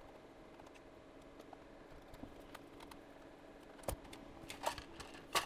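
Small clicks and taps of plastic parts and tools as a power strip's plastic housing is opened up by hand, with a few sharper clicks in the last second and a half.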